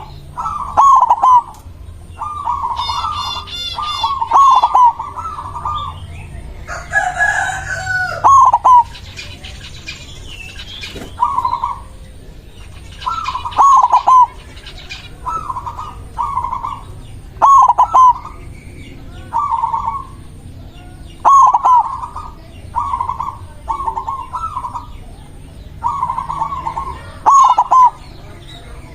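White zebra dove (perkutut) cooing its staccato song over and over, one short phrase about every two seconds. A rooster crows once about seven seconds in, and a smaller bird chirps briefly near the start.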